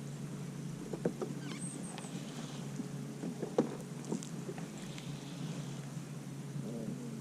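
A steady low hum with a few light clicks and knocks scattered through it.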